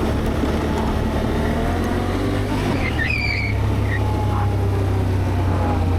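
ATV engine running steadily under way on a trail, a low drone. A brief high chirp comes about three seconds in.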